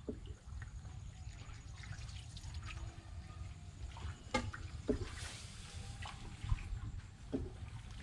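Water trickling and sloshing around a small hand-paddled boat moving along, with a few brief sharp splashes or knocks, over a steady low rumble.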